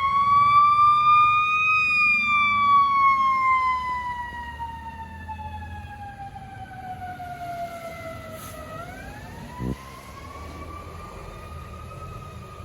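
Fire ladder truck's siren wailing in a slow sweep: it rises, falls slowly for several seconds, then climbs again. It grows fainter after about four seconds, and there is a short thump near the end.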